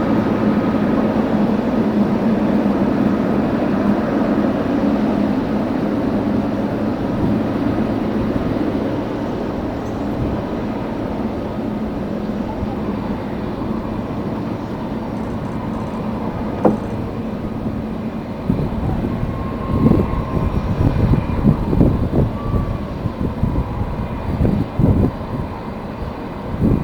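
Jet airliner engines running: a steady rumble that slowly fades. In the last third, gusts of strong wind buffet the microphone in irregular low blasts.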